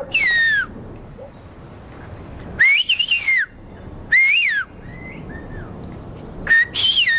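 A woman whistling in the whistled form of Greek, calling a neighbour by name and asking him to come over. It comes as several loud, piercing phrases of sliding pitch, each rising and falling, with short pauses between them.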